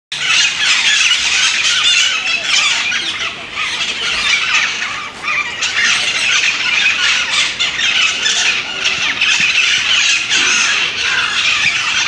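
Parrots squawking without pause, many calls overlapping into one continuous, loud chorus.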